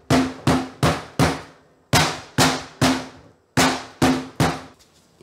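A pestle pounding a lemongrass stalk on a wooden cutting board: about a dozen sharp thuds in three quick runs of four.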